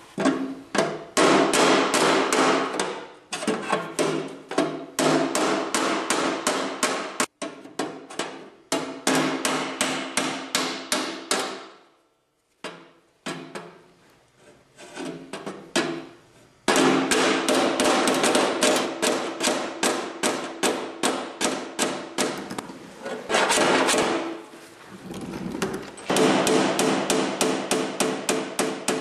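Body hammer beating dents out of the Allis-Chalmers 310's sheet-steel panel against a hand-held dolly: rapid ringing metal blows, about three a second, with a pause of a few seconds midway before the hammering resumes.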